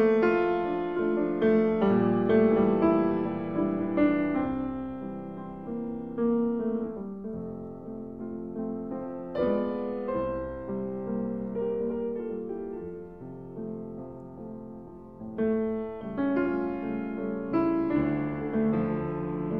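Slow, soft piano background music, notes and chords struck and left to ring and fade. It grows quieter in the middle and fills out again with new chords about three-quarters of the way through.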